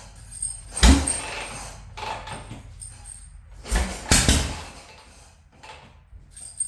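A kickstart motorcycle being kicked over twice, each kick a heavy clunk as the engine turns over without catching. The rider guesses the engine is flooded.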